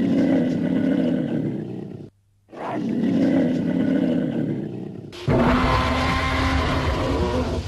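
Animated Spinosaurus roaring: two long growling roars, then a third, deeper one that starts abruptly about five seconds in. The dinosaur is overheating because its sail is covered and can no longer shed heat.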